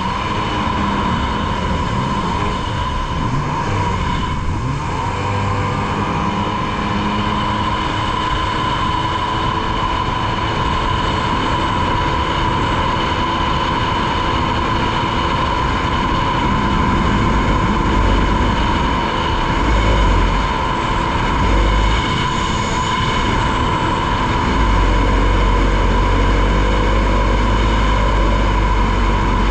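2003 Polaris Virage personal watercraft running steadily at speed on test after a jet pump replacement, a steady engine drone with a high whine over it. Low rumbling gusts on the microphone build up in the last third.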